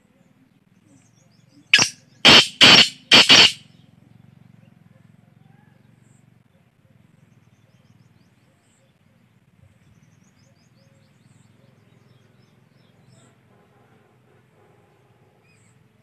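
Male black francolin calling once: four loud, harsh notes in quick succession lasting under two seconds, about two seconds in.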